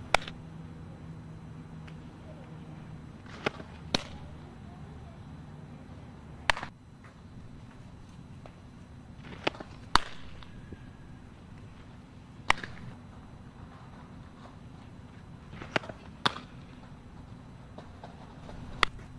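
Softballs popping sharply into a catcher's mitt, a crack every few seconds, several coming in close pairs about half a second apart. A steady low rumble runs underneath.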